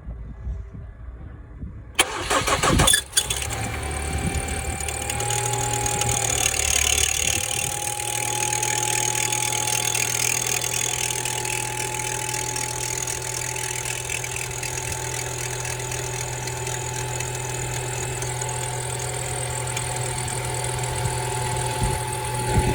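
Ford Mondeo Mk4 2.3-litre petrol four-cylinder engine cranked and started about two seconds in, then idling steadily with a steady whine over its running. The extraneous noise comes from a worn alternator bearing.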